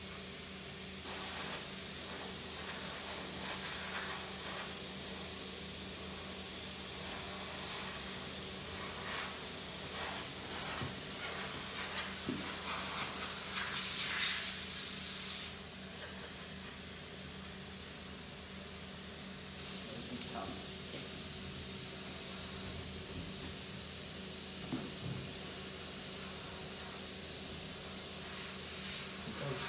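Siphon-feed airbrush hissing as it sprays paint, starting about a second in, stopping for about four seconds around the middle, then starting again.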